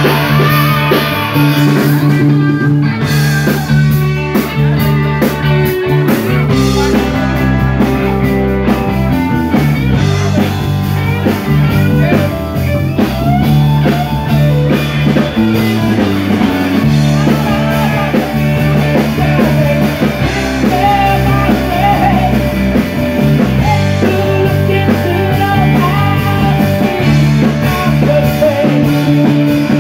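Live rock band playing: electric guitars over a drum kit, with the music running on without a break.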